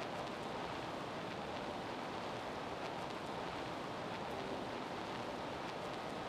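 Steady, even background noise of a school gymnasium, a hiss-like haze with no clear voices and a few faint ticks.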